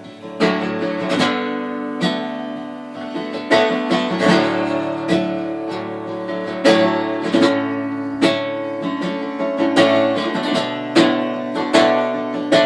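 Acoustic guitar strummed in chords, an instrumental passage of a blues-indie song, with a sharp strum every half second to a second.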